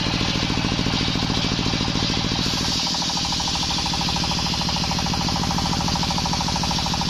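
Engine-driven circular sawmill blade running steadily while ripping a plank of waru wood, the engine's rapid, even pulsing under the hiss of the cut.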